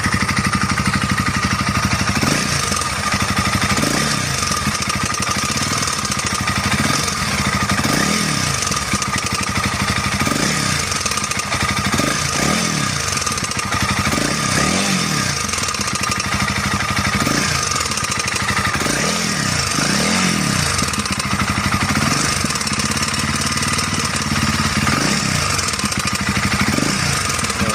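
Honda CRF300L single-cylinder engine idling with a steady, characteristic knock. This is piston slap from critical piston wear: the clearance between the piston and the cylinder wall has grown too large.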